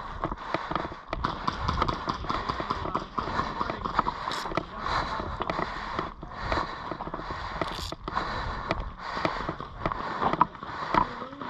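Irregular footsteps with rustling and scattered small clicks and knocks.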